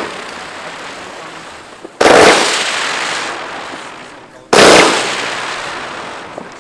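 A 49-shot consumer fireworks battery firing turning comets. A quick string of bangs ends at the start, then come two loud shots about two and a half seconds apart, each trailing off slowly.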